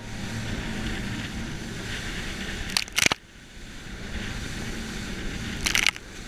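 Water rushing and splashing along the hull of a fast-running motor cruiser, with the boat's engine running underneath. Two short crackling bursts of spray come about three seconds in and near the end, and the level drops briefly just after the first.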